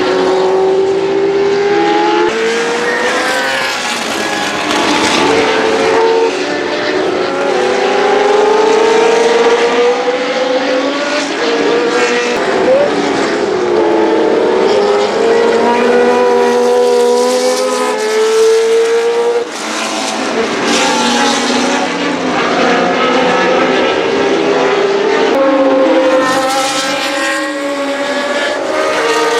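Historic F1 car's Cosworth DFV V8 engine running hard on track, its pitch rising and falling again and again as it accelerates, changes gear and lifts off.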